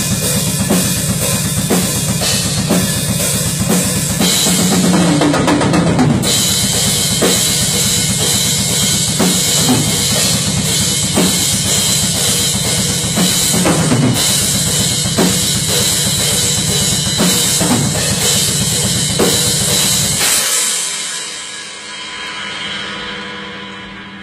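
Full rock drum kit played hard: driving bass drum and snare under a constant cymbal wash, with fills that run down in pitch about five seconds in and again near fourteen seconds. The playing stops about twenty seconds in and the cymbals ring out and fade.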